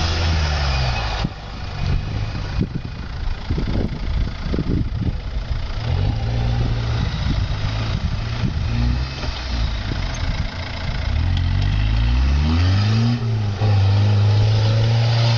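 Mitsubishi Pajero (Shogun) engine labouring through deep mud and slush, with a spell of knocks and splashing a few seconds in. Its revs climb about twelve seconds in and hold high near the end as it drives out of the bog.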